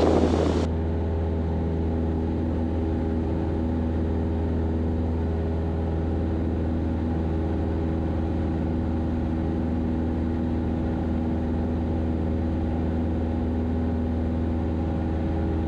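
Cessna 172 Skyhawk's piston engine and propeller droning steadily in flight, heard inside the cabin. The drone is an even, deep hum with a stack of steady tones above it, holding one pitch and level throughout.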